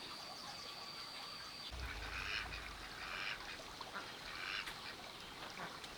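Poultry calling in the background: a few short calls about a second apart.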